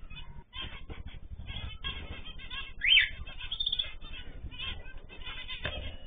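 Cockatiels, canaries and zebra finches in an aviary chirping and calling over one another in a steady chatter, with one loud rising call about halfway through.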